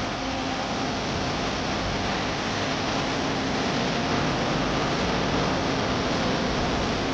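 Car air conditioning running: a steady rush of air with a faint low hum underneath, holding constant.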